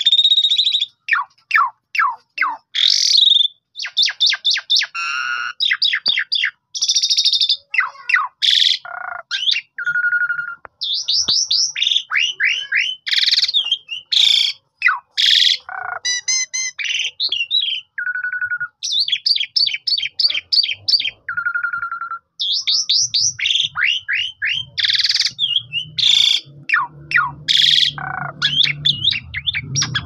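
Asian pied starling (jalak suren) singing a long, varied song without pause: rapid trills, sweeping chirps, sharp squawks and clear whistled notes, one after another.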